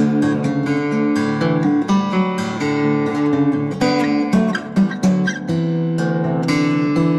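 Background music on acoustic guitar, plucked and strummed notes in a steady flow.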